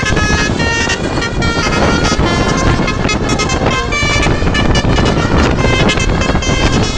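A bus's 'telolet' musical horn playing a quick tune of short notes that change pitch every fraction of a second, over a steady rumble of engine and road noise.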